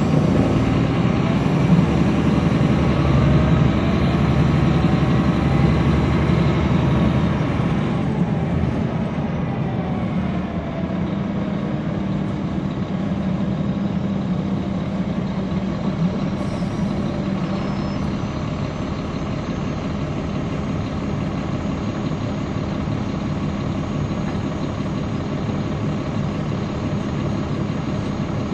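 Caterpillar C13 diesel engine of a NABI transit bus, heard from on board. It runs loud under acceleration with a rising whine for about eight seconds, then eases off into steady, quieter running.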